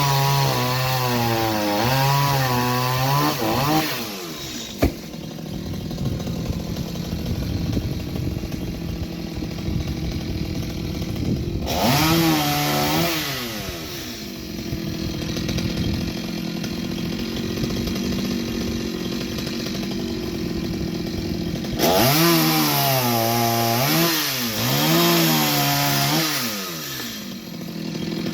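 Chainsaw engine running under load, its pitch wavering up and down as the chain bites into wood, in three spells of cutting. Between them it drops back to lower, quieter running and revs up again, with one sharp click about five seconds in.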